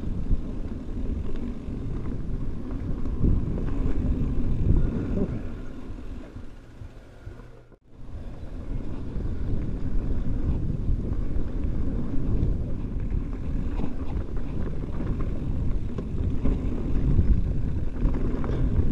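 Wind rumbling on a handlebar-mounted action camera's microphone, mixed with tyre and trail noise from a mountain bike riding dirt singletrack. The sound fades and drops out briefly about eight seconds in, then picks up again at the same level.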